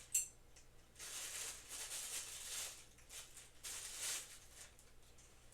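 Handling noise from putting together parts of new boxing equipment: a sharp click just after the start, then bursts of rustling and scraping, loudest near the middle and again about four seconds in.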